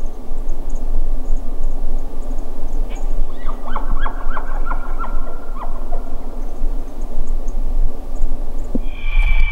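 Distant elk calling: a quick run of about eight short, pitched calls in the middle, over a steady low rumbling hiss.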